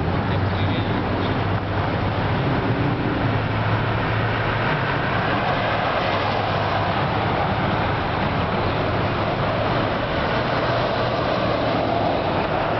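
City street traffic at a signalled intersection: car engines running and tyres on the road, an even, unbroken noise with a low hum underneath.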